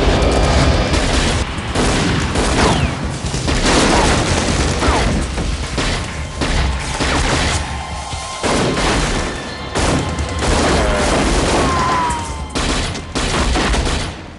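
Film shootout sound: rapid, sustained pistol gunfire from several guns, mixed with background film music, breaking off at the very end.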